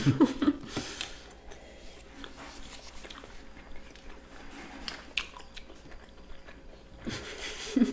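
People chewing their last mouthfuls, with wet mouth sounds and scattered small clicks; louder in the first second and near the end.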